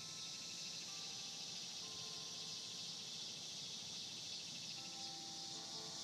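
Distant church bells chiming, faint sustained notes entering every second or two, over a steady, louder buzz of insects.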